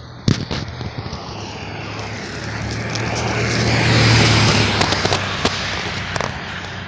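Pickup truck driving past close by, its engine and tyres swelling to a peak about four seconds in, then fading. A few sharp clicks sound over it, the loudest just after the start.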